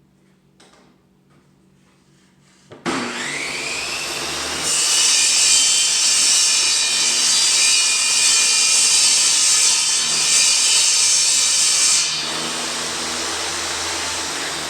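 Table saw switched on about three seconds in and spinning up, then ripping through a wooden board: a louder, high-pitched cutting sound for about seven seconds, after which the blade spins free with no load.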